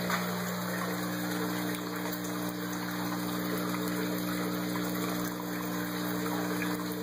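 Water pouring from an inlet pipe and splashing onto the gravel of an aquaponics grow bed, a steady gush, over a constant electric hum.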